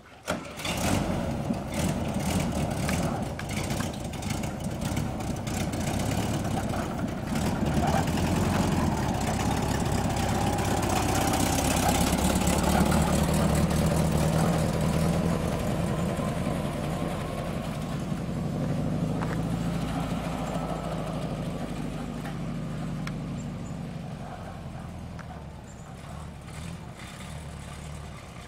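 VW Type 2 single-cab bus engine running, starting abruptly about half a second in. It grows louder toward the middle and eases off again near the end.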